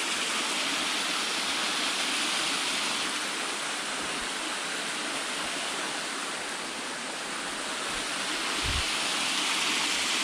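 Small waterfall spilling in thin streams over layered rock ledges into a shallow pool: a steady rushing splash of water.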